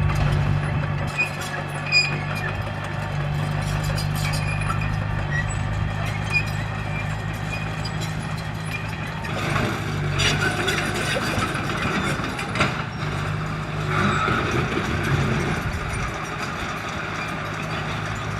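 Diesel engine of heavy construction machinery running with a steady low hum that dips briefly a few times, with scattered clicks and knocks.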